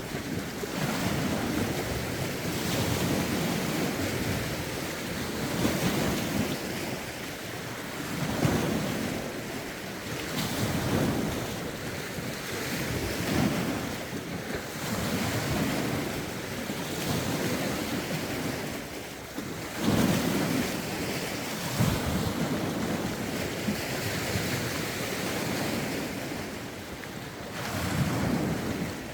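Lake waves washing in, one surge every two to three seconds, with wind rumbling on the microphone.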